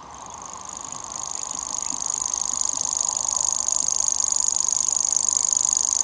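Common grasshopper warbler singing its song, a continuous high-pitched reel, growing louder over the first few seconds and then holding steady.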